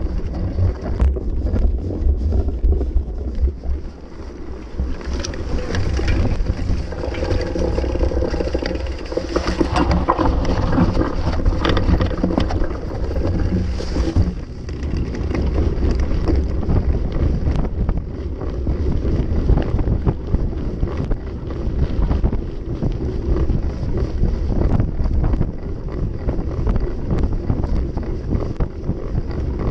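Wind rushing over an action camera's microphone as a mountain bike rides a cross-country course, with a steady low rumble of tyres on grass and dirt and frequent short rattling knocks from the rough ground.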